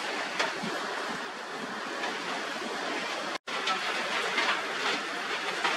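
Rain and wind in a forest storm, a steady rushing noise, broken by a split-second dropout about three and a half seconds in.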